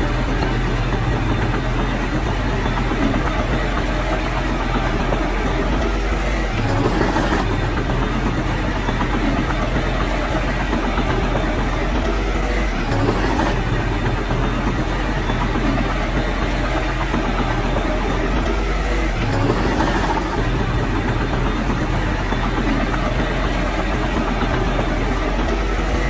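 Heavy diesel engine of earthmoving machinery running steadily under a broad mechanical rumble.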